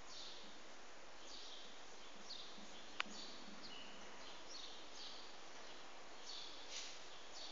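Steady background hiss with scattered short, high chirps and a single sharp click about three seconds in.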